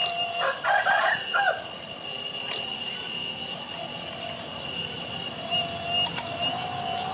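Steady whine of an RC hydraulic excavator's pump, its pitch wavering slightly as the boom and bucket work. A chicken calls briefly about half a second in, the loudest sound here.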